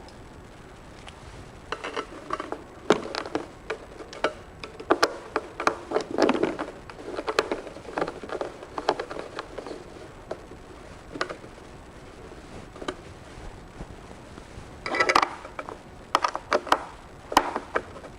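Allen wrench driving bolts into a stack chair's metal legs: irregular metal clicks and knocks in clusters as the key is seated, turned and shifted, with the chair parts knocking now and then. There is a quieter stretch of a few seconds before a last busy run of clicks.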